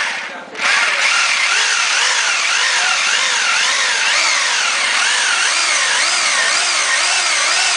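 Electric drill boring into tile. It stops briefly about half a second in, then runs steadily, its motor pitch wavering up and down over and over as the bit is pressed in.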